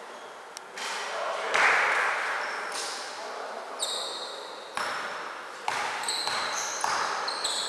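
Basketball game sounds in an echoing gym: a ball bouncing, short high squeaks like sneakers on the court floor, and players' voices, with the loudest burst of noise about a second and a half in.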